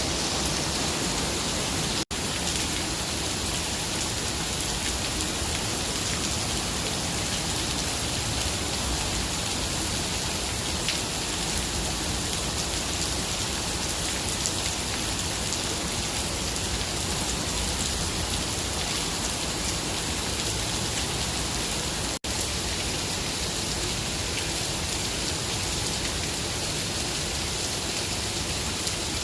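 Steady rain falling, an even hiss of drops with no change in strength, cutting out for an instant twice.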